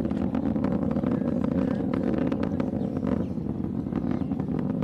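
Distant solid rocket motors rumbling steadily, with a low roar and a faint crackle, from the Orion Ascent Abort-2 test vehicle's booster and launch abort system in flight.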